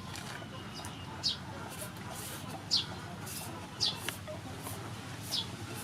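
A bird's short, high, falling chirp, repeated four times about every second and a half, over a low steady background hum, with a single sharp click about four seconds in.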